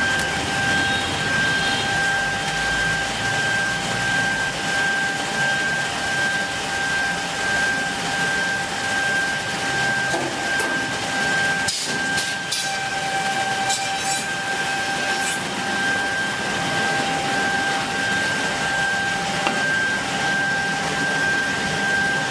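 BJF115WX semi-automatic edge banding machine running: a steady mechanical hum with a steady high whine. Partway through, a spell of sharper high hissing and rattling comes as a panel feeds through the machine.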